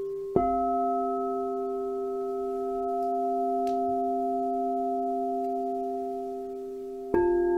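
Singing bowl struck twice, about seven seconds apart. Each strike rings on as a long, steady sustain of several tones at once, the ring of an earlier bowl still sounding underneath.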